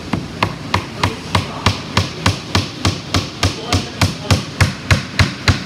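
Hammer driving a 2-inch nail into the wooden baseboard of a drawer, with quick, evenly spaced taps at about three strikes a second.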